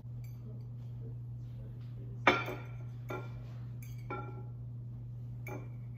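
A metal fork clinking against a ceramic plate four times, each strike ringing briefly; the strike about two seconds in is the loudest. A steady low hum runs underneath.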